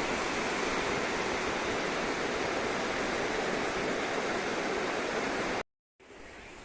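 Steady rushing of flowing water, like a river running over rapids. It cuts off abruptly near the end, and a much quieter steady noise follows.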